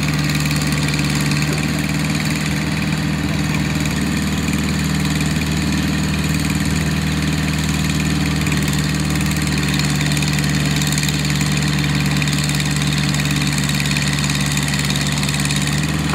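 Case backhoe's diesel engine idling steadily.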